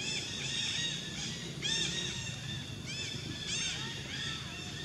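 Short, high-pitched chirping animal calls in quick runs, several a second, clustered near the start, about two seconds in and past three seconds, over a steady low background hum.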